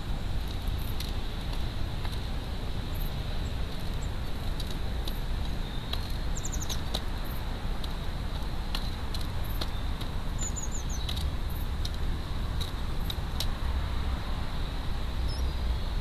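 Irregular sharp clicks of a wood pigeon pecking seed from a plastic feeder tray, over a steady low rumble and a faint high whine. A small bird gives short high chirps twice.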